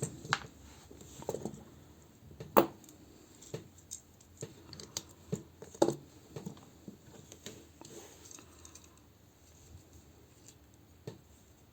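Hard plastic parts of a Transformers combiner figure clicking and knocking as they are handled and popped apart. There are a few sharper snaps among lighter scattered clicks, and they grow sparse in the last few seconds.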